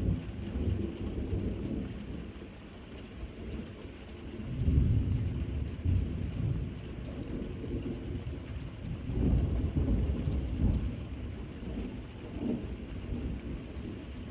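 Steady rain with thunder rumbling in deep, rolling swells: one at the start, a strong one about four to six seconds in, another around nine to eleven seconds, and a smaller one near twelve seconds.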